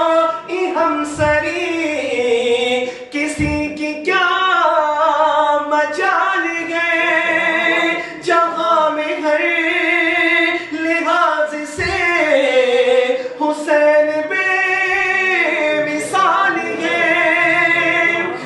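A man singing an unaccompanied Urdu devotional manqabat, drawing out long, wavering held notes that glide up and down between phrases.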